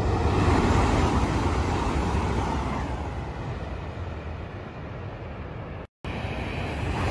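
Kyushu Shinkansen 800-series bullet train passing at high speed: a loud rush of air and wheel noise with a deep rumble, strongest about a second in and fading over the next few seconds. Near the end the sound cuts out for a moment and another loud train rush begins.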